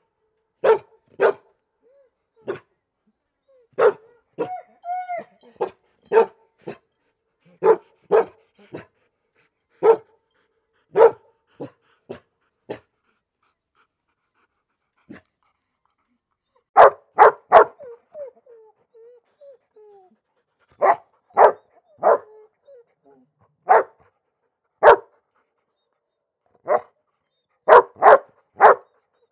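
Dog barking, in single sharp barks and quick runs of three or four, with a short whine a few seconds in and soft whimpering after the middle.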